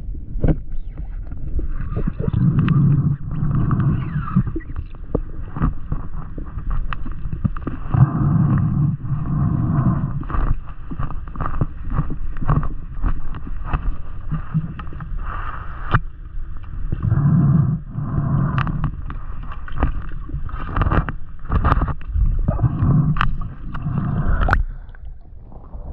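Muffled underwater sound picked up by a camera in its housing: a swelling water wash with many sharp clicks and knocks while a speared tilapia is handled and strung.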